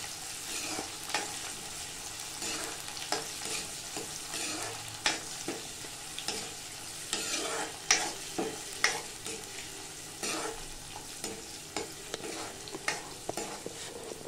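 Green chillies, garlic and curry leaves sizzling in hot oil in a kadhai, a ladle stirring them with frequent irregular scrapes and taps against the pan.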